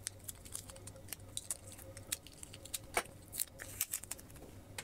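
Small sharp clicks and taps, irregular at about four a second, the loudest about three seconds in: small plastic watercolour pans being handled and set down on a table, over a faint steady hum.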